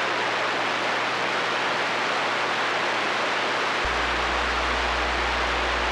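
Steady static hiss from a Galaxy CB radio's receiver between transmissions. A low steady hum comes in about four seconds in.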